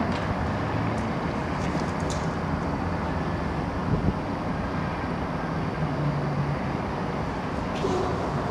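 Steady outdoor ambience: an even, low rushing noise with a few faint clicks.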